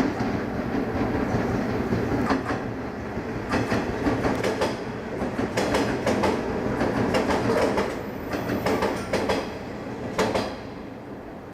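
Train moving over station tracks: a steady rumble with the wheels clicking over rail joints and points at uneven intervals, dying away near the end.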